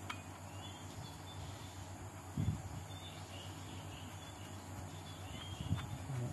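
Two dull low knocks as the propeller shaft's universal joint and centre bearing are handled, over a steady low hum with faint high chirps.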